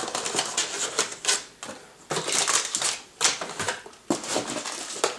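Cardboard packaging being pulled and lifted out of a box: irregular rustling, scraping and sharp clicks of card against card, in bursts with a couple of brief pauses.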